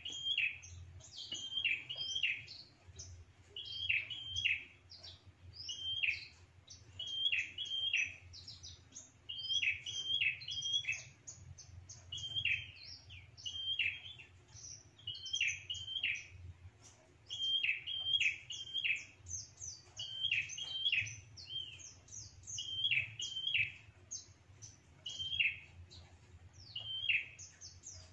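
Prinia (prenjak) calling: sharp, falling chirps, mostly in twos and threes, repeated about every second over a continuous higher twittering. The call is used as a lure that draws rival prenjak in to chase off an intruder.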